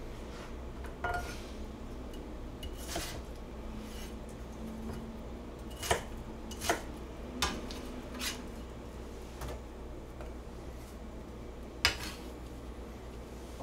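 Kitchen knife cutting Korean radish into cubes on a plastic cutting board: a handful of separate sharp knocks of the blade against the board, spaced irregularly, the sharpest about six seconds in and near the end.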